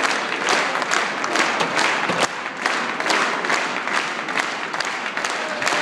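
Large crowd clapping in unison, at about two claps a second.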